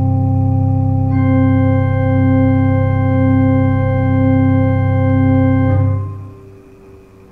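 Organ holding the final chord of a free improvisation: a sustained chord with higher notes joining about a second in, released near the end and dying away.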